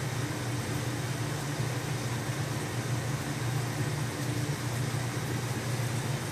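Steady low mechanical hum with an even hiss over it, unchanging throughout, typical of aquarium filter pumps running.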